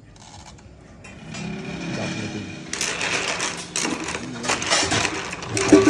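Blood cockle shells clattering and clinking against each other and the metal pan as they are stirred in water with a knife, starting a little under three seconds in, with a sharp knock near the end.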